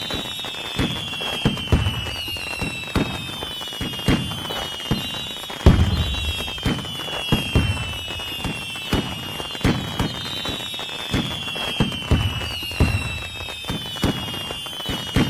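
Fireworks going off: many sharp bangs and low booms, with high whistles falling in pitch every couple of seconds. The loudest bang comes a little under six seconds in.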